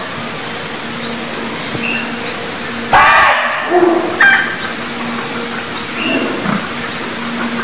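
Red muntjac (barking deer) giving one short, loud bark about three seconds in. Behind it, short high rising chirps repeat about once a second over a faint steady hum.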